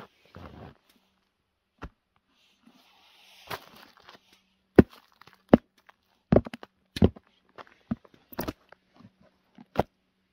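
Black lace-up boots being lifted out of the snow and handled, giving a string of sharp knocks and thuds. The knocks come thick from about five seconds in, with soft rustling of snow and clothing between them.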